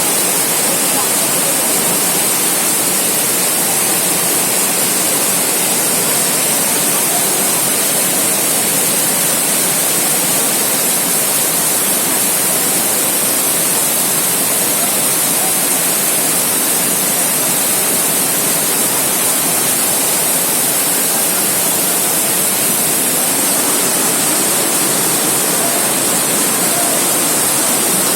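Heavy rain falling, a loud, steady, unbroken hiss.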